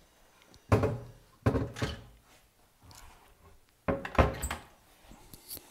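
Pine cupboard doors and drawers of a reclaimed pine sideboard being pushed shut by hand: wooden thunks, two in quick succession about a second in and two more around four seconds in.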